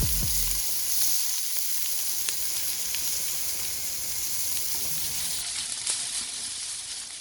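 Open wood fire crackling: a steady hiss with scattered sharp pops. The tail of background music fades out in the first moment.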